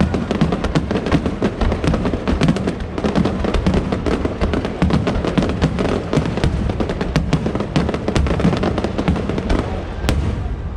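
A dense fireworks barrage: many bursts and crackles a second over a continuous low rumble, easing slightly near the end, with music playing alongside.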